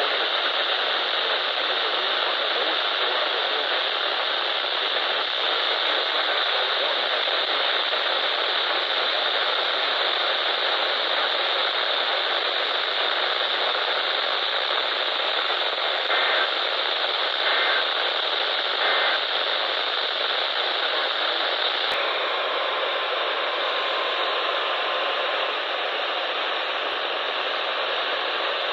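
Steady radio static hiss from a receiver. About two-thirds of the way through come three short, evenly spaced bursts of two-tone Emergency Alert System data tones. A few seconds later there is a click, and the hiss changes character.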